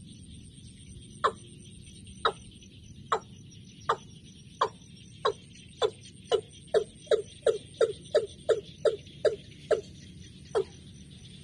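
A field bird of the kind trapped with a caged decoy ('gà đồng') calling in a series of short, sharp, downward notes, about one a second at first, quickening to about three a second, then slowing again near the end. Insects trill steadily behind.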